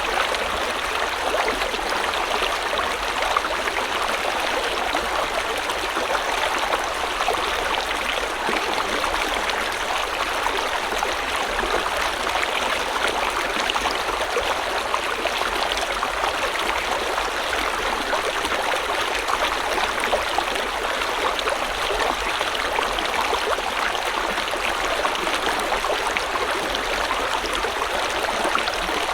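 A river or stream flowing steadily over rocks, with a constant rush of water and fine splashing and gurgling, unchanging throughout.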